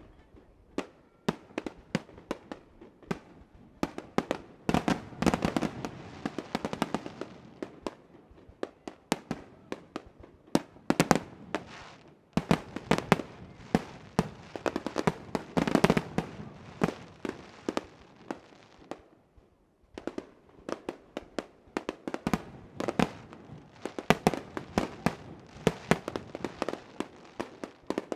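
Fireworks display: aerial shells bursting in quick succession, with dense volleys of sharp bangs and a short lull a little past the middle.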